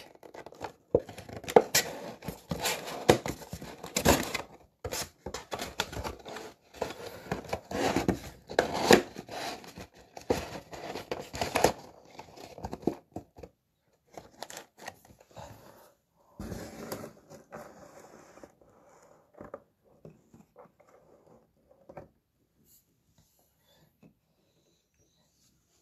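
A cardboard box of 2020 Panini Phoenix football cards being torn open along its perforated lid: a long run of tearing and crackling cardboard, thinning to scattered handling noises after about thirteen seconds and nearly quiet near the end.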